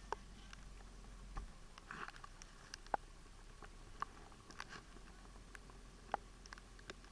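Faint, irregular clicks and taps, a few each second, over a low steady hiss.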